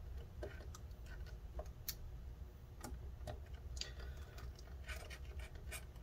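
Faint, irregular small clicks and light scrapes of hands handling a tiny screw and screwdriver while screws are fitted to the hard drive mount.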